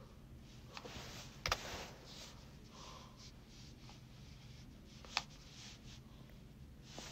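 Faint room noise with soft rustling and a few sharp clicks, the loudest about a second and a half in and another just past five seconds: handling noise near the microphone.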